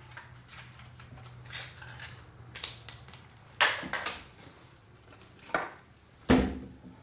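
Metal tools and small parts clinking and knocking on a workbench as a trimmer's spark plug is handled and gapped: light clicks, then three sharper knocks in the second half, the last and loudest with a dull thud.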